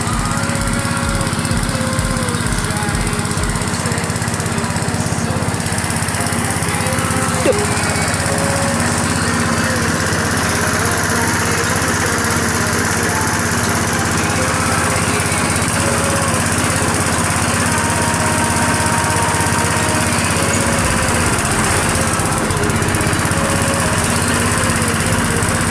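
Diesel engine running steadily, driving a homemade rice threshing machine.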